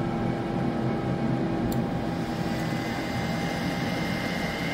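Anycubic Kobra 2 Max 3D printer running its first-start self-test: a steady whir of its fans and stepper motors as the print head moves. A high whine comes in about two seconds in.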